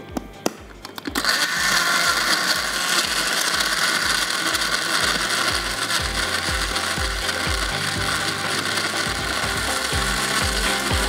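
A few light clicks, then about a second in a countertop blender starts and runs steadily, blending ice, bananas, yogurt and red syrup into a smoothie.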